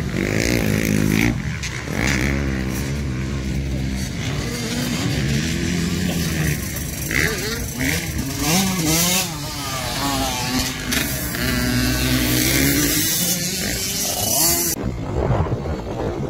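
Dirt bike engine revving on a motocross track, its pitch rising and falling again and again as the throttle is opened and closed through the turns.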